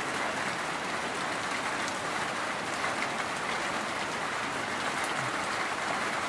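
Steady rain falling, an even hiss of drops with faint scattered patter.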